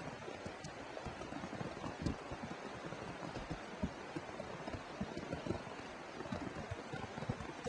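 Quiet outdoor background on a wet road: a faint steady hiss with irregular soft low thumps.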